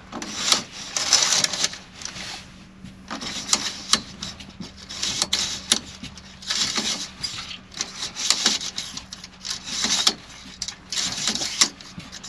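Broom sweeping the bed of a truck's semi-trailer: about seven long bristle strokes, roughly one every second and a half, with a few sharp knocks among them.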